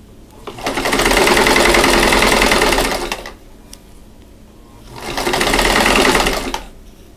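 1952 Singer 15-91 sewing machine stitching a seam in two runs, the first about two and a half seconds and the second about two seconds, with a short pause between.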